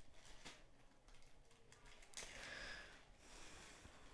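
Near silence: faint room tone with a few soft clicks and a brief soft hiss a little over two seconds in.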